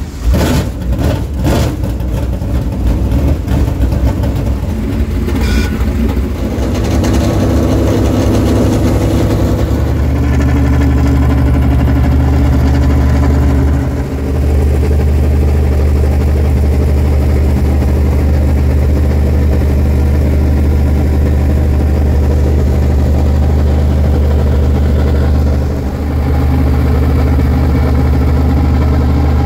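A dirt-track race car's V8 engine running loud and close. It is uneven for the first several seconds, then holds a steady, deep idle that dips briefly twice.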